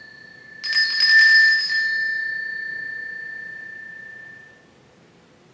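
Altar bells (Sanctus bells) rung at the elevation of the host. An earlier ring is still fading when a new shaken jingle starts under a second in, lasting about a second, then rings on and dies away about four and a half seconds in.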